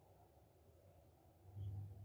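Near silence: faint background tone with a low hum that swells slightly near the end.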